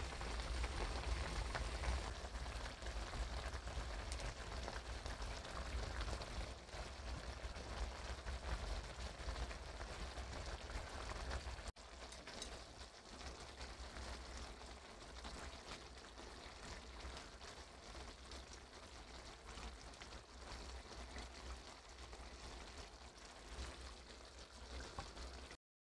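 Soy-and-chili sauce bubbling and sizzling in a frying pan as tofu and onions simmer: a dense, steady crackle over a low rumble. It drops suddenly to a quieter level about halfway through and cuts off just before the end.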